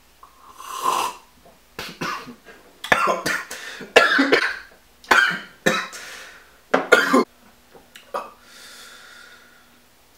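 A man coughing in a fit of about eight harsh coughs, some in quick pairs, starting about a second in just after a sip of drink and dying away around seven seconds in.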